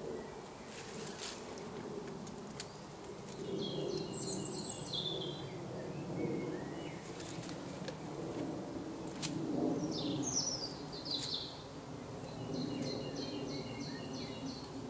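Woodland birds singing: several short high trills and runs of quick repeated notes, over a steady low background hum, with a few faint knocks and rustles.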